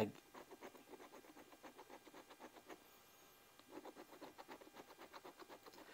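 Scratch-off lottery ticket being scratched: quick faint strokes, about five a second, in two runs with a short pause about three seconds in.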